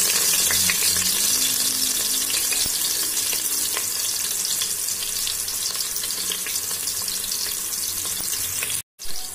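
Sliced red onions frying in hot oil in a pressure cooker: a steady sizzling hiss full of fine crackles that eases slightly over the seconds. It cuts out abruptly for a moment near the end.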